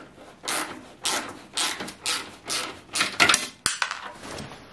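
Hand ratchet clicking in short, even strokes, about two a second, as a bolt is tightened on a motorcycle's rear turn-signal mount, with one sharper click about two-thirds of the way in.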